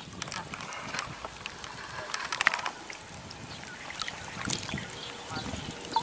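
River water lapping and trickling close by, with scattered light clicks and knocks from handling gear, a few clustered about two seconds in.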